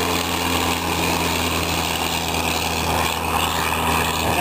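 The 110-horsepower rotary engine of an Avro 504K biplane droning steadily in flight as it passes overhead.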